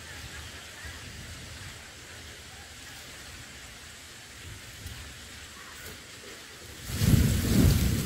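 Quiet outdoor background hiss, then about seven seconds in a loud rough rustling rumble for about two seconds as a bulbul drops onto its nest and settles on the eggs, jostling the dry grass nest and tomato stems.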